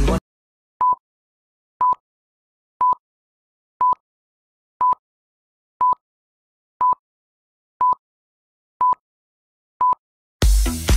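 Film-leader style countdown beeps: ten short beeps at one pitch, one a second, each with a click at its start and silence between them, counting down to the next exercise. Dance music comes back in near the end.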